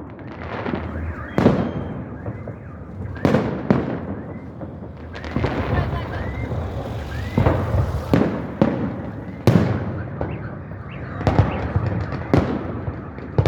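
Fireworks salute going off: sharp bangs every second or two, some followed by a crackling tail, over a background of crowd voices.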